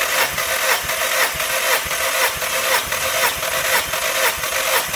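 Volkswagen 1.6-litre CFNA four-cylinder petrol engine being cranked over by its starter motor for a compression test of the first cylinder. It makes a steady cranking whir that pulses about twice a second; the cylinder reads 12 kg/cm².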